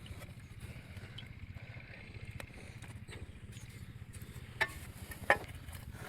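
Diesel engine running steadily with a low, even rumble, with two sharp knocks at about four and a half and five and a half seconds in.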